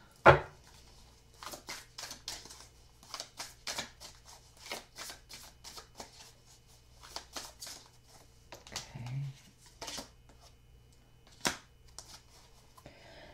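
A deck of oracle cards being shuffled by hand, a run of irregular soft clicks and rustles, with a card laid down sharply about a third of a second in.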